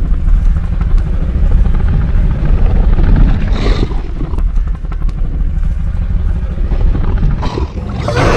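Deep, continuous rumbling growl of a designed Indominus rex creature sound effect, with two short brighter swells about three and a half and seven and a half seconds in.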